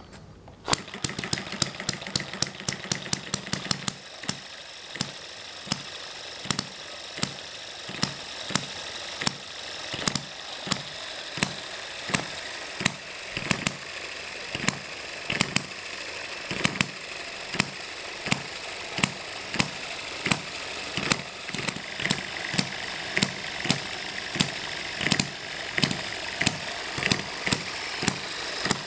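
Eachine ET1 hit-and-miss model gas engine catching about a second in and firing rapidly for a few seconds. It then settles into its hit-and-miss rhythm: a sharp firing pop a little more than once a second, coasting in between with the exhaust valve held open, over a steady light mechanical clatter.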